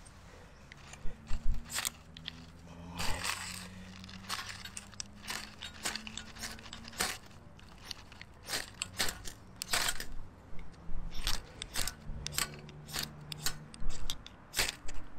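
Ferrocerium rod scraped with a striker again and again, an irregular string of short, sharp scrapes throwing sparks to light tinder in a wood stove.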